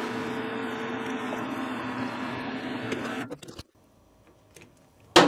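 Metal lathe running with its three-jaw chuck spinning while the end of a small round-bar bushing is faced and countersunk: a steady machine hum with two steady tones, which stops about three and a half seconds in. A sharp metallic click comes near the end as the part is handled at the stopped chuck.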